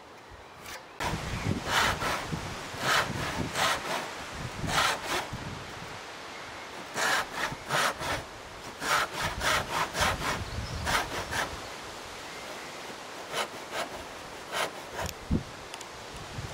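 Disston No. 5 backsaw, its teeth filed with 6 degrees of rake and 5 degrees of fleam, cutting wood by hand: a long run of quick back-and-forth sawing strokes starting about a second in, broken by a couple of short pauses.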